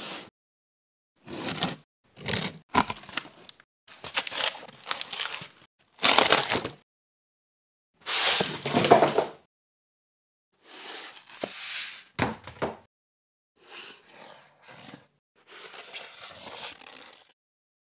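Cardboard and foam packing being handled in about ten short bursts of crinkling, tearing and scraping, each cut off to dead silence before the next: a cardboard box's flaps opening and its foam packing block being pulled apart.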